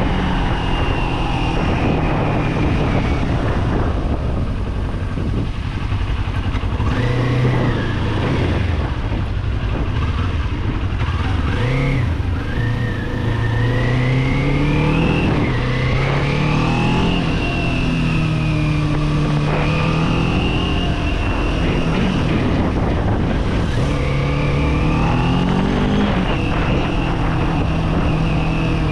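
Kawasaki Z400's parallel-twin engine under way, its note climbing and falling several times as the rider accelerates, shifts and eases off, over a steady rush of wind and road noise.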